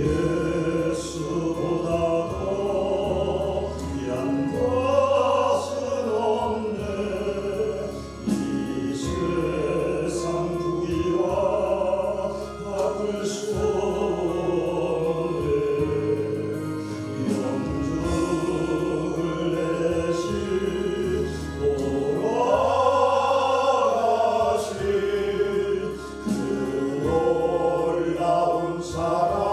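Christian gospel song: voices sing a slow hymn-like melody over a steady instrumental backing.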